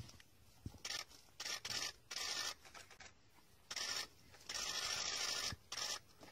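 Irregular bursts of rustling, scraping noise, several short ones and one lasting about a second late on, with no calls.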